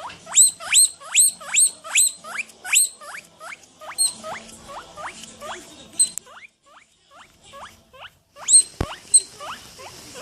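An animal giving a rapid run of high, squeaky calls, each dropping steeply in pitch, about two to three a second, thinning out after a few seconds. Near the end come two more calls and a single low thump.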